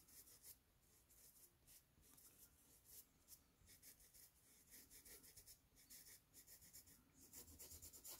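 Faint, scratchy strokes of a paintbrush rubbing paint into textured canvas: many quick, irregular brush strokes as the paint is blended.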